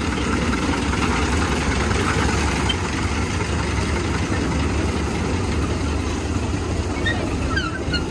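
Small steam locomotive running steadily at low speed as it passes close by, a dense mechanical chatter. A few short high squeaks from the wheels on the rails come near the end.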